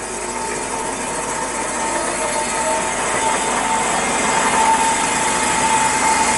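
Cosen R-250NC automatic horizontal bandsaw running in its auto cycle, the blade driven as the bow comes down for its first trim (clean) cut through a 2x2 piece of wood. A steady whine holds at one pitch over the machine noise, and the sound grows gradually louder.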